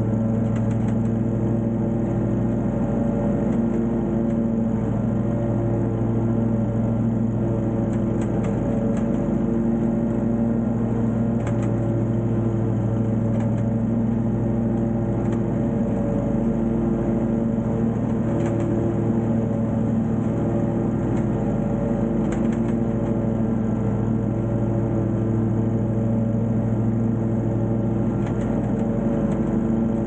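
Wright Intensity 36 stand-on mower running steadily while mowing, its engine holding an even pitch, with a few faint ticks now and then.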